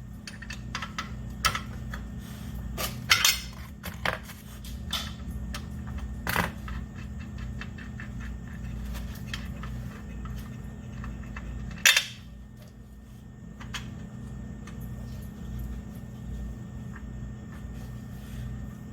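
Scattered metallic clicks and clinks of steel parts being handled as a circular saw's blade washers and arbor bolt are taken off, with a few louder clanks, the loudest about 12 seconds in. A steady low hum sits underneath.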